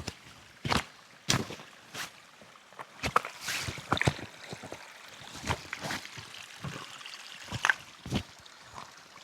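Footsteps walking on wet ground: irregular thuds and scuffs, about one or two a second, with a wet, sloshing edge.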